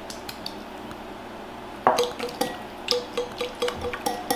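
Wire whisk beating egg into softened butter in a glass bowl, clinking against the glass about four times a second with a short ring on each stroke, starting about two seconds in.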